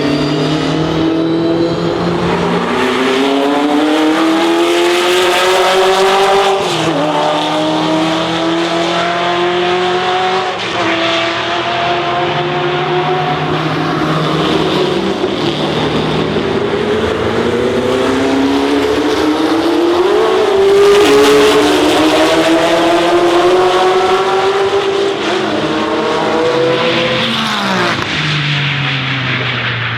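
Historic racing car engine accelerating hard through the gears: the pitch climbs and drops back at each upshift, about five times, then the revs fall steeply near the end as it comes off the throttle.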